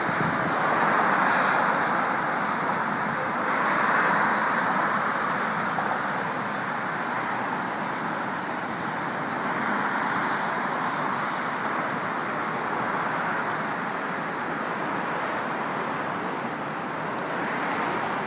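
A steady outdoor rushing noise that swells and eases every few seconds, the kind made by the wind of a passing storm and street traffic.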